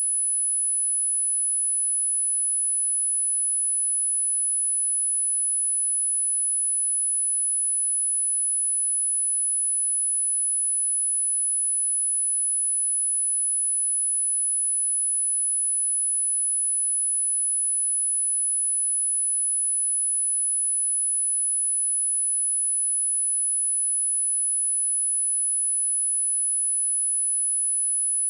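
A steady high-pitched sine test tone at 10098 Hz, one pure pitch held at an even level without a break.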